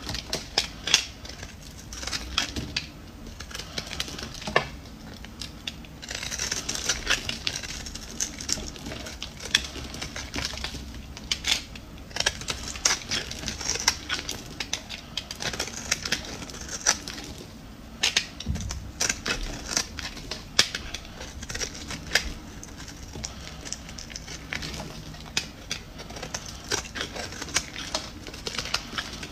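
Dry, crumbly bar soap being cut with a small blade: a steady run of crisp crunches and crackles as it breaks apart, with a few longer scraping passes.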